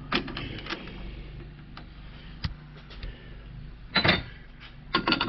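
Brass bar stock being set into a metal lathe's chuck: scattered metal clicks and knocks as the piece and the jaws are handled, with the loudest clack about four seconds in and a quick run of clicks near the end.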